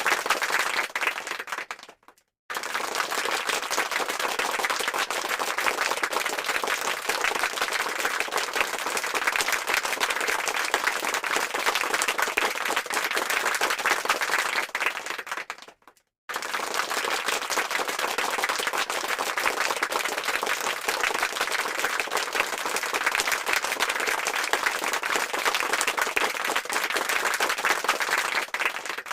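Dense crowd applause, many hands clapping at once. It fades out and stops for a moment about two seconds in and again about sixteen seconds in, each time starting up again at full strength.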